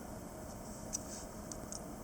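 Quiet room tone with a few faint, short clicks.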